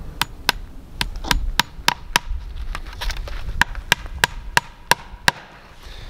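Hammer blows on a wooden fence post, about three sharp strikes a second, fastening barbed wire to the post. The hammering stops about a second before the end.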